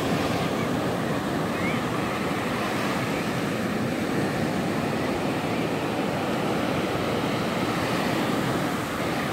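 Ocean surf breaking and washing up on a sandy beach: a steady, even rush of waves.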